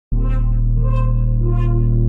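Ambient music: a sustained low drone and held chords, with three bright notes about two-thirds of a second apart.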